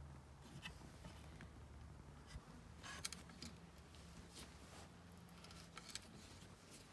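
Faint scattered clicks and scrapes of a hand tap in a tap wrench being turned to cut a thread into a steel disc, over a low steady hum.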